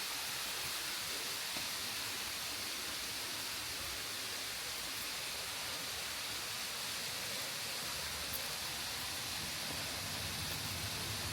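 Waterfall's steady rush of falling water. A low rumble joins in about three-quarters of the way through.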